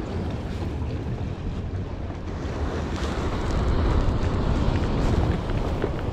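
Wind rumbling on the microphone over sea waves washing against the rocks of a breakwater, a steady rush that grows a little louder about halfway through.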